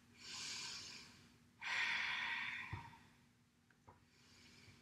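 A woman breathing audibly during a yoga twist: two long, airy breaths, the second louder, then a quiet pause.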